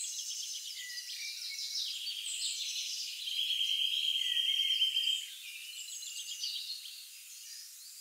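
Nature ambience of many high-pitched chirps and trills from small birds and insects. A steady high trill runs from about three to five seconds in, and after it the chorus grows quieter.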